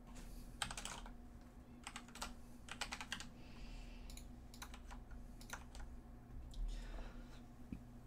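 Typing on a computer keyboard: short runs of quick key clicks with pauses between them, over a faint steady low hum.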